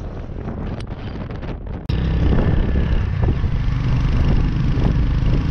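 Wind buffeting the microphone over the low rumble of a moving vehicle. It jumps louder about two seconds in and holds there.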